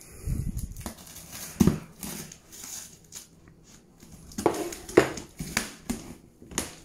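A knife cutting the packing tape on a cardboard shipping box and the flaps being pulled open: irregular scraping, ripping and knocking of cardboard, loudest a couple of times near the middle and end.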